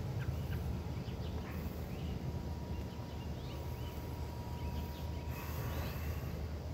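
Birds chirping in woodland, short scattered calls over a steady low rumble, with a thin steady high tone in the middle of the stretch.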